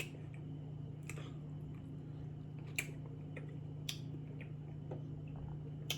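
A few light, sharp clicks and taps over a steady low hum, as a spoon knocks against a container while chili is spooned onto hot dogs.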